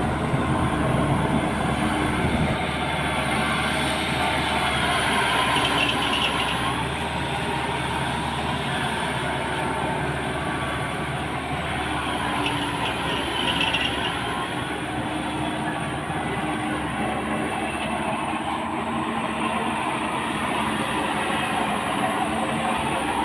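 Maxxi Bimo 102 combine harvester running steadily.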